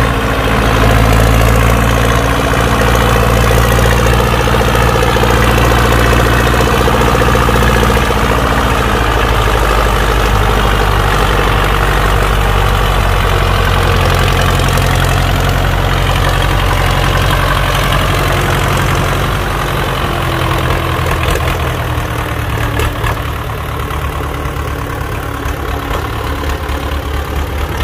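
Belarus tractor's four-cylinder diesel engine running steadily at low speed as the tractor works through mud. The engine sound grows a little fainter about two-thirds of the way through.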